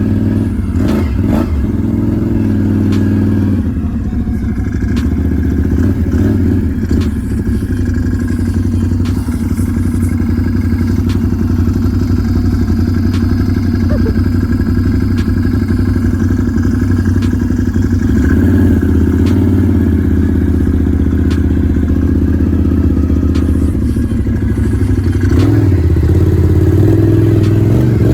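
Can-Am Renegade 1000 XMR ATV's V-twin engine running steadily, with scattered light clicks, its note picking up a little near the end.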